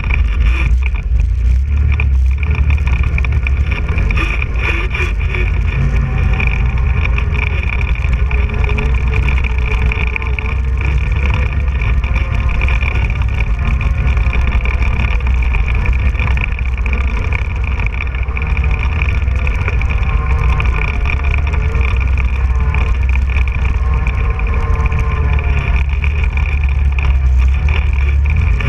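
ATV engine running steadily under way, picked up by a camera mounted on the quad, over a heavy low rumble. There are a few knocks in the first few seconds, and the engine note rises and falls slightly about twenty seconds in.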